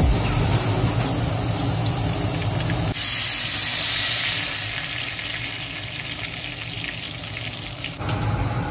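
Hot oil sizzling in an iron kadhai as seeds and then a yellow masala fry in it, an Indian tempering. The sizzle drops to a softer level after about four and a half seconds.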